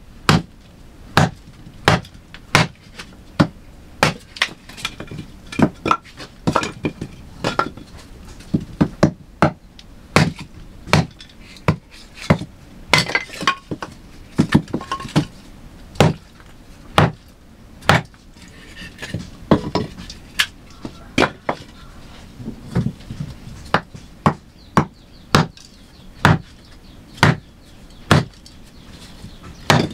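A hand tool striking wood again and again in sharp, separate blows, about one to two a second in an uneven working rhythm, as in chopping or driving timber during construction.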